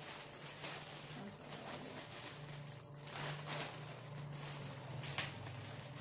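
Plastic courier mailer bag crinkling and rustling as it is picked and torn open by hand, with irregular crackles and one sharper crackle about five seconds in, over a low steady hum.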